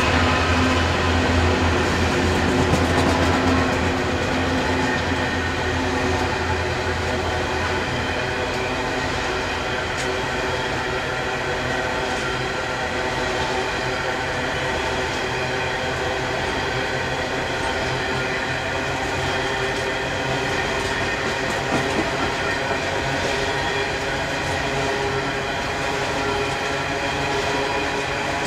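Diesel freight locomotives pass with their engines droning, and the drone fades over the first few seconds. A long rake of hopper wagons then rolls by with a steady rumble of wheels on rail and a sharp knock about 22 seconds in.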